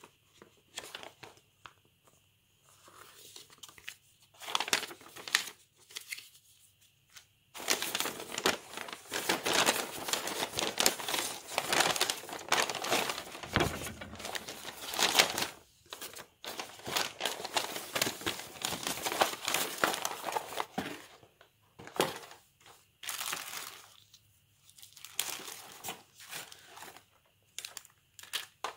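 Large paper instruction leaflet being handled and folded, rustling and crinkling in scattered bursts, then steadily for a long stretch in the middle.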